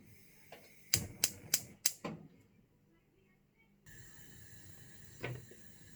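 A cooker hob being switched on under a pan: five quick sharp clicks, then a steady hiss that starts suddenly about four seconds in.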